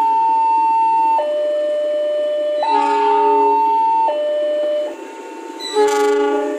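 Locomotive air horn sounding, switching back and forth between a high and a low note, each held about one to one and a half seconds. A louder horn chord of several notes breaks in near the end.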